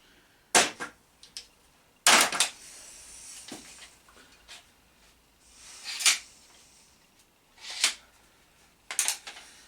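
Quick-grip one-handed bar clamps being handled on a test rig: about six separate clunks and clicks, the loudest about two seconds in.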